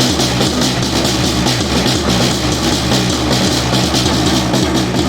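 Drum band music: snare drums and other drums playing a fast, driving rhythm, with sustained low notes underneath.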